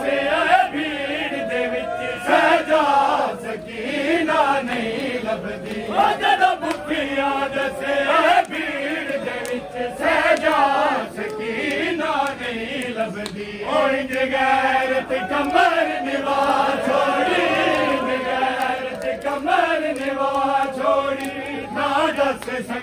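Men's voices chanting a noha, a Shia mourning lament, in sung phrases that swell about every two seconds.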